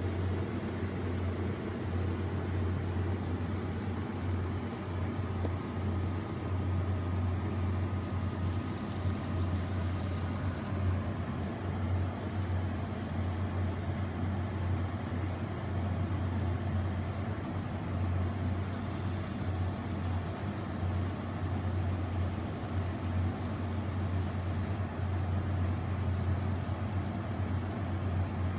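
A steady low machine hum over a noisy rumble, unchanging throughout, with a faint thin whine from about four to eleven seconds in.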